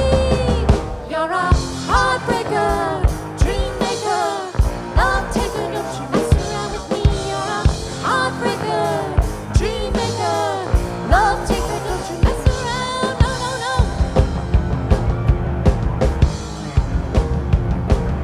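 Live rock band playing, with a drum kit keeping time and a lead melody line that slides and bends in pitch above the bass and chords.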